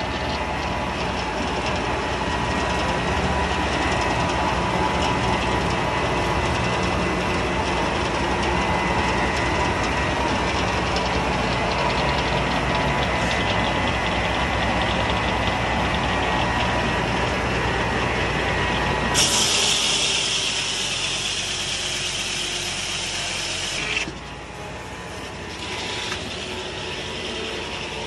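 Foley Belsaw circle sawmill running with a steady mechanical clatter. About nineteen seconds in, a louder high hiss starts suddenly and cuts off about five seconds later, after which the mill runs quieter.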